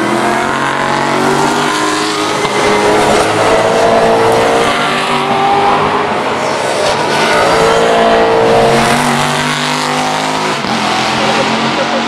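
A pack of V8 touring race cars braking into and accelerating out of a chicane, several engines overlapping, their pitch falling and rising as they pass one after another.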